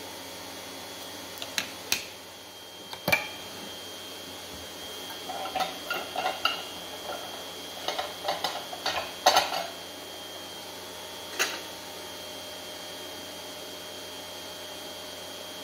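Small hard clicks and clinks of glass capillary tubes and microhematocrit centrifuge parts being handled on a lab bench while setting up a packed cell volume test: a few separate clicks early, then a quick run of light clinks in the middle and one last click.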